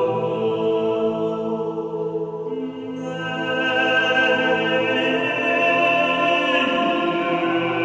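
Slow, sustained music of long held chords. The harmony shifts about two and a half seconds in and again near the end.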